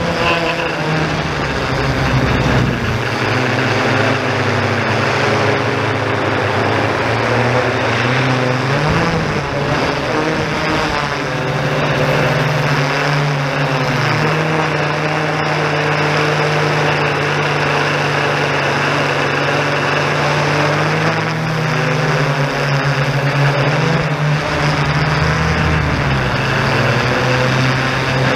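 Yuneec Typhoon G quadcopter's electric motors and propellers humming steadily close to the microphone, the pitch stepping up and down several times as the drone changes speed.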